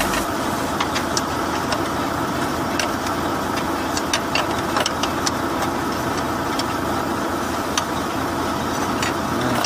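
Truck diesel engine idling steadily, with a few sharp clicks scattered over it.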